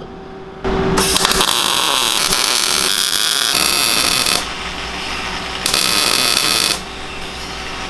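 MIG welder arc running as welds are laid on steel tubing: one weld of about four seconds starting just under a second in, then a shorter one of about a second.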